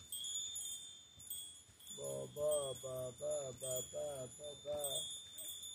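A high, steady chime-like ringing that keeps sounding again. From about two seconds in, a pitched voice joins it in short, bending syllables.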